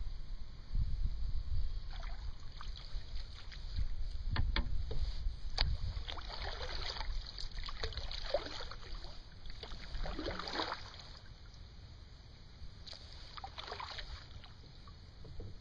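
Kayak paddling: the paddle blades dip and swish through the water every couple of seconds, over a low rumble of wind on the microphone.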